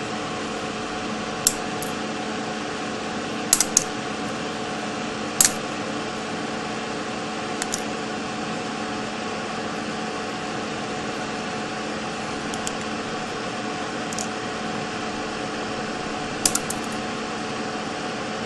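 Flush side cutters snipping the soldered wire leads of through-hole components on a circuit board: about a dozen sharp clicks at irregular intervals, some in quick pairs or threes, over a steady background hum.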